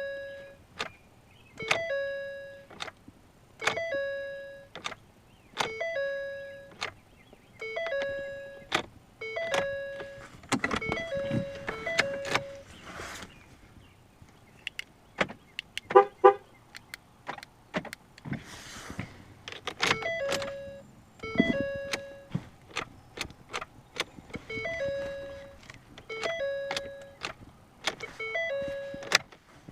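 2014 Ford Fusion's in-cabin warning chime dinging over and over, about once a second, while the car fails to crank. It stops for several seconds in the middle, where there are a few clicks and rustles, then starts again.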